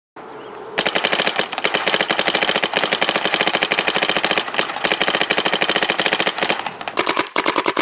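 Paintball marker firing a rapid, steady string of compressed-air shots, with a brief break near the end.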